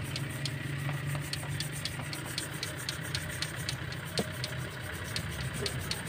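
Toothbrush scrubbing oily sludge off the exposed valve springs of a 4D56 diesel head: a light, regular ticking about three times a second, over a steady low engine hum.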